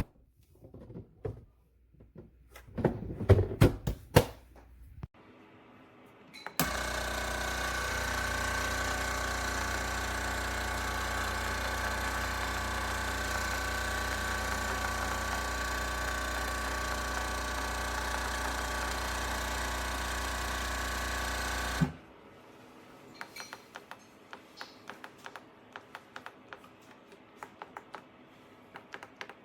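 De'Longhi La Specialista espresso machine running with a steady hum for about fifteen seconds, starting and stopping abruptly. Before it come a few knocks and clicks; after it, light rapid ticking.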